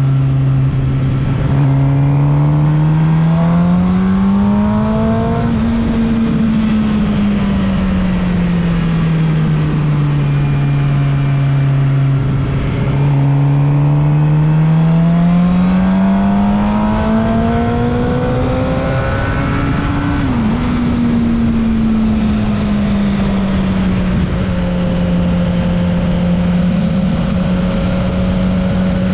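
Suzuki GSX-R750's inline-four engine under way. Its revs climb and fall back twice as the rider accelerates and eases off, with a brief dip about twenty seconds in, then it holds a steadier cruise.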